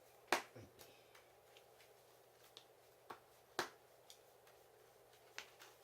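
Trading cards being put down on the table during play: about five short sharp taps, the loudest near the start and another strong one about three and a half seconds in.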